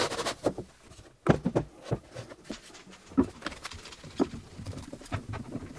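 Scattered clicks and knocks of one-handed bar clamps being set and tightened on a plywood drawer box, with a louder knock just over a second in.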